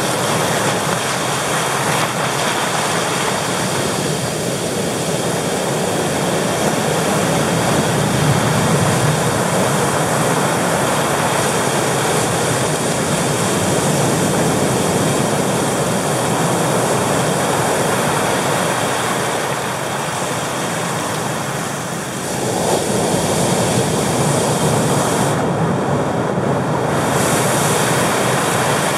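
Pacific Ocean surf breaking and washing over flat coastal rocks: a steady, loud rush of waves and foam that eases slightly about three-quarters of the way through, then swells again.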